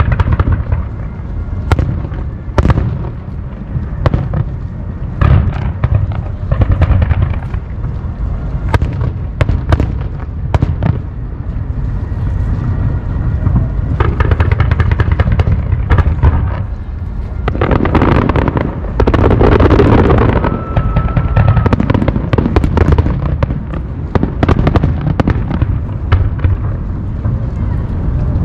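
Aerial fireworks bursting one after another: sharp booms and crackles over a continuous low rumble, building to a dense barrage about two-thirds of the way through.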